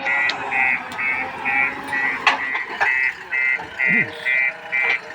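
JCB backhoe loader's reversing alarm beeping about twice a second over the machine's running engine, with a few sharp knocks.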